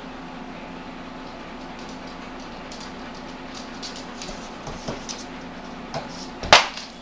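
Steady low hum with light, scattered clicks of a Doberman puppy's claws on a hardwood floor, then one sharp, loud, very short sound about six and a half seconds in.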